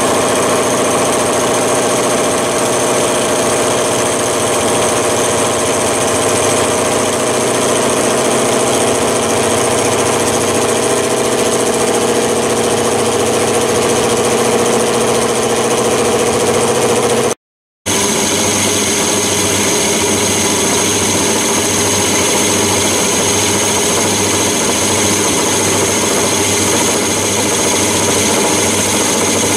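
Metal lathe turning down an annealed steel cold chisel: motor and gear whine over the noise of the tool cutting. It drops out briefly about two-thirds through, then carries on with a regular low beat of about one and a half a second, typical of an interrupted cut as the tool passes over the chisel's flats.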